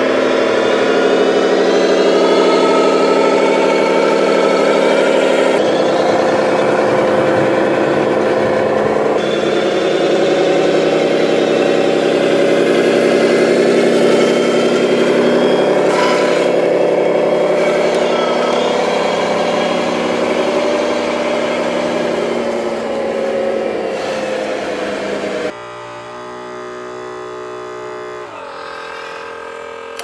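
A scale RC Mercedes-Benz tipper truck's sound module plays a diesel truck engine running steadily through a small speaker. The engine sound jumps abruptly a few times and turns quieter and different near the end.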